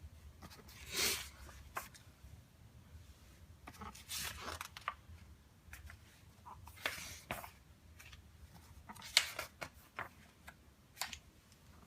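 Paper pages of a booklet being turned and handled: several short paper rustles a couple of seconds apart.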